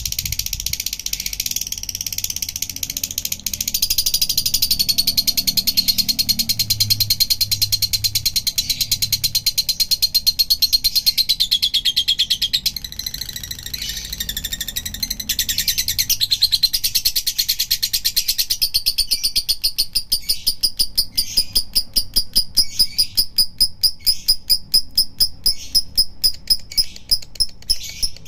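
Lovebird singing a long, high-pitched chattering song of the kind keepers call 'nada minor'. About two-thirds of the way through it changes to a fast, even run of repeated chirps, about three or four a second.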